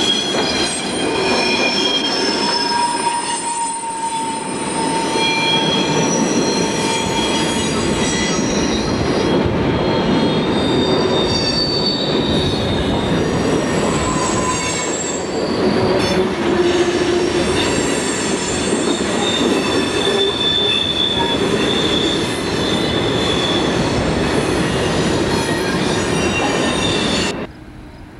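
Burlington Northern freight train rolling past, its steel wheels squealing against the rails in a changing set of high-pitched squeals over the rumble and clatter of the cars. The sound cuts off suddenly near the end.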